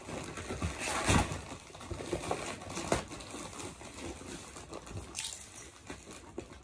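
Plastic mailer wrap and packing tape rustling and crinkling as a taped-up parcel is pulled open by hand, with irregular rustles and a few sharper crackles about a second in, near three seconds and near five seconds.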